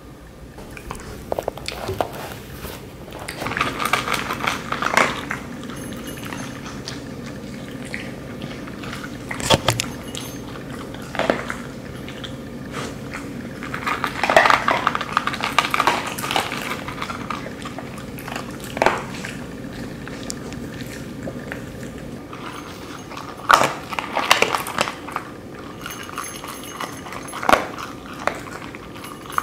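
Dogs eating from food bowls: irregular bursts of crunching and clinking as they chew and nose the food against the bowl, over a low steady hum.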